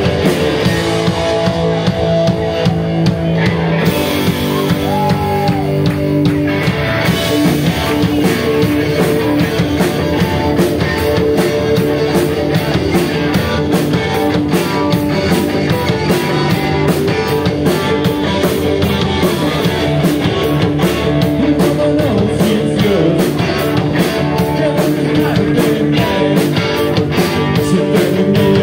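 Rock band playing live: electric guitars, bass guitar and a drum kit driving a steady beat.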